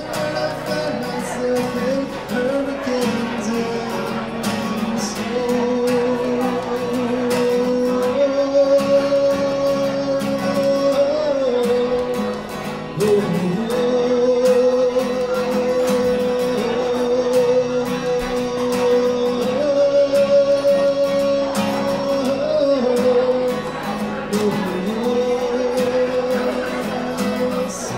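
A man singing long held notes over a strummed steel-string acoustic guitar, performed live.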